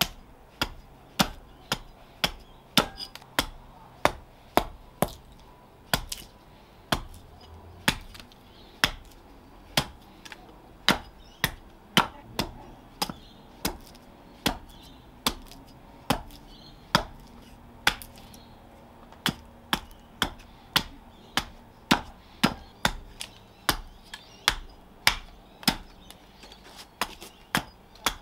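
Small carving axe chopping into a spalted birch spoon blank held upright on a wooden chopping block: a steady run of sharp chops, about two a second.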